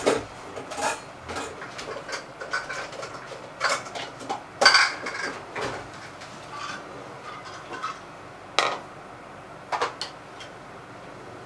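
Kitchenware clattering: a series of sharp clinks and knocks as dishes and utensils are moved about in a low kitchen cupboard and a plastic bowl is taken out and set on the counter. The loudest knocks come about four and a half and eight and a half seconds in.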